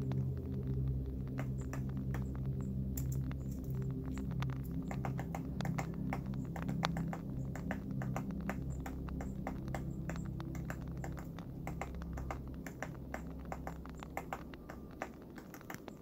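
Woodpecker pecking at tree bark: many sharp, irregular taps, over a low steady drone. Everything fades out over the last few seconds.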